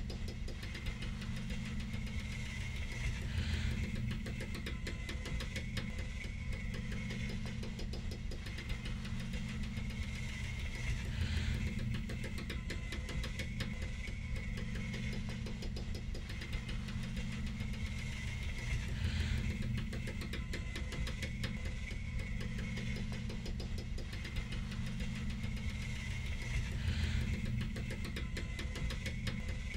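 Steady low mechanical hum with a faint high tone over it. It swells about every eight seconds, each swell carrying a short falling sweep.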